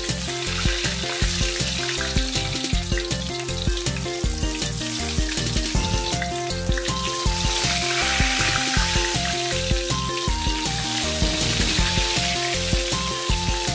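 Background music with a melody and steady beat over the sizzle of tilapia pieces frying in oil in a wok, the sizzle swelling about eight seconds in.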